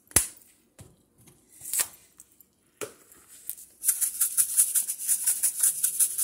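A knock and a few clicks, then, about four seconds in, a spice shaker rattling in quick even shakes, about five or six a second, as seasoning is shaken over a steak in the pan.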